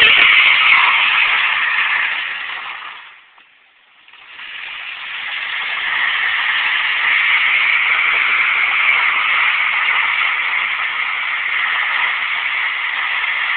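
Nissan Altima's tires squealing as the car slides sideways in a drift. The squeal fades away about three seconds in, starts again a second later and then holds steady.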